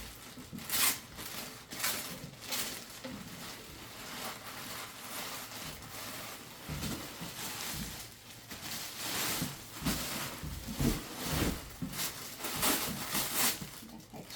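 Handbag packaging wrapping rustling and crinkling in short, irregular bursts as the bag is unwrapped.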